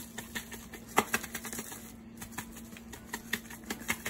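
Spice shaker being shaken over meat, giving irregular sharp clicks and rattles, the loudest about a second in. A faint steady hum runs underneath.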